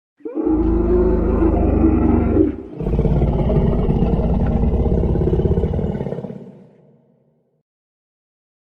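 Dinosaur roar sound effect: a deep, loud roar that starts a moment in, breaks off briefly after about two and a half seconds, then resumes and slowly fades away.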